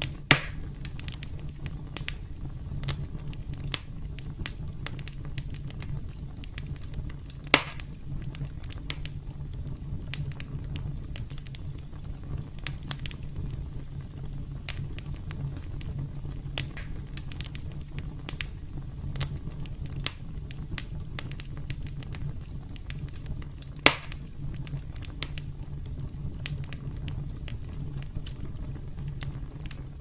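Campfire crackling: a steady low rumble of burning wood with frequent small crackles, and three sharper, louder pops, one just after the start, one about a quarter of the way in and one about four-fifths of the way in.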